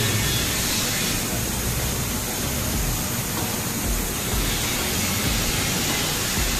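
Senfeng fiber laser cutter cutting steel plate: a steady rushing hiss from the assist-gas jet blowing molten metal and sparks through the cut, with the machine's running noise underneath.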